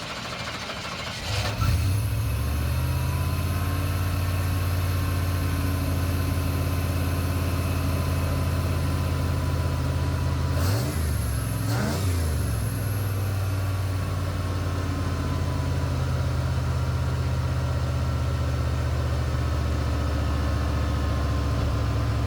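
1990 Chevrolet C1500 pickup's engine starting cold after sitting for months. It catches about a second and a half in, then idles steadily, with two quick revs near the middle.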